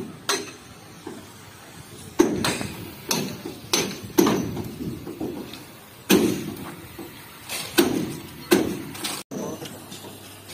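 Irregular heavy metal bangs, about ten in all, each with a short ring: hammer blows on the steel frame and sheet-metal body panels of a bus being stripped for scrap.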